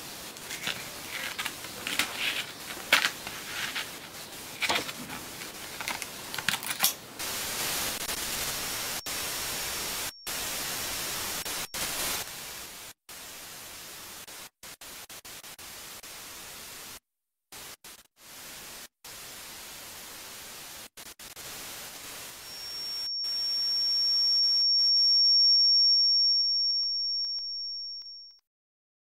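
Static-like hiss broken by sharp crackles and stuttering abrupt cutouts, then a single high-pitched ringing tone that swells and fades away near the end.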